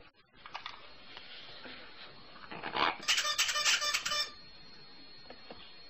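Light clicking and tapping of a plastic ball toy being pawed and pecked, with a louder rattling, chattering stretch about three seconds in.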